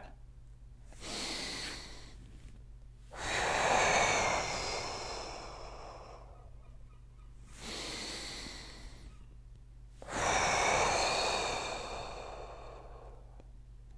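A man breathing deeply and audibly, twice: each time a short, quieter breath in, then a long, louder breath out that slowly fades. These are the deliberate exhalations of a floor-slide exercise, breathed out while bracing the obliques.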